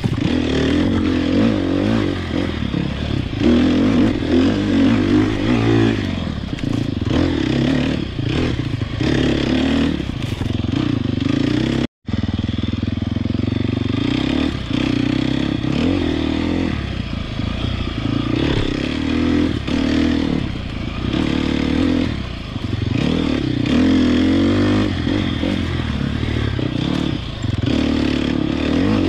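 Sherco SEF 300 Factory single-cylinder four-stroke enduro motorcycle engine being ridden, its note rising and falling with the throttle. The sound drops out for an instant about twelve seconds in.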